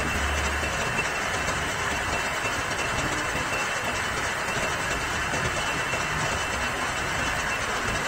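Metal lathe running, its chuck spinning while a tool bit cuts a small threaded steel piece. Steady machine noise with a faint thin high whine.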